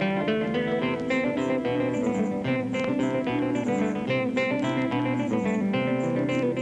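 Guitar music, plucked and strummed acoustic guitar playing a steady run of notes.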